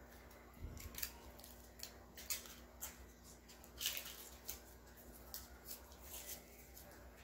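Small plastic camera parts and accessories clicking and rubbing as they are handled by hand: a string of short, light, irregular clicks, the sharpest about four seconds in.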